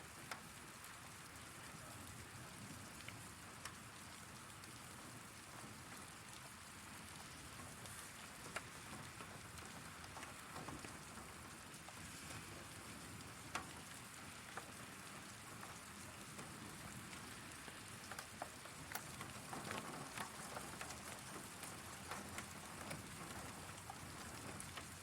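Heavy rain falling steadily, with scattered sharp taps of drops striking a hard surface; the taps come more often in the last several seconds.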